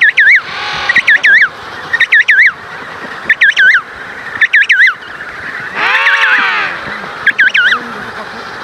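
An animal calling over and over: groups of two or three short, wavering whistled notes about once a second, with one longer, lower arching call about six seconds in.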